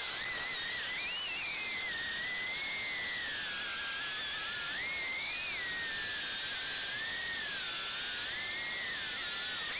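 Ducted FPV drone's motors and propellers whining in flight, the pitch rising and falling as the throttle changes, over a steady hiss of air.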